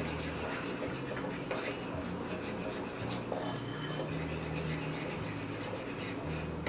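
Pancake batter being stirred in a bowl: a utensil scraping and rubbing steadily against the bowl. The batter is thin and runny.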